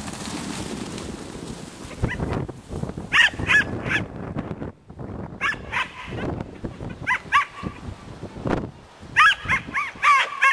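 A herding dog barking at sheep in short, high yips, single barks at first and then a quick run of them near the end.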